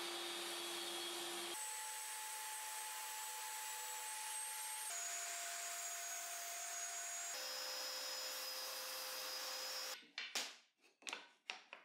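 Table saw running with a steady whirr and a steady tone whose pitch jumps suddenly three times. Near the end, a few light knocks as plywood strips are set down on a wooden workbench.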